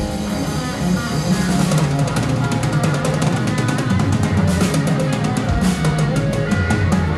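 Live rock band playing: electric guitar, bass guitar and drum kit. From about a second and a half in, the drums break into fast rolls with rapid cymbal crashes, a closing flourish at the end of a song.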